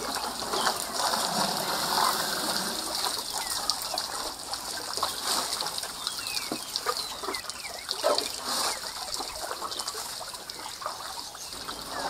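Water splashing and trickling as a herd of African bush elephants drink from a small pool, dipping and lifting their trunks, in scattered small splashes at irregular moments.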